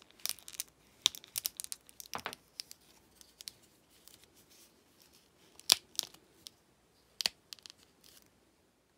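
Plastic Marvel Legends action figure being handled, with scattered clicks, creaks and scrapes as a stiff, fused neck joint is worked loose. The sharpest click comes about two-thirds in.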